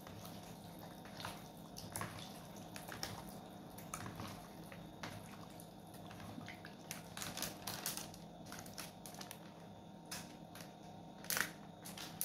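Hand mixing raw chicken wings in a plastic bowl: irregular wet squelches and small clicks as the pieces are squeezed and turned, with one louder sharp crackle near the end.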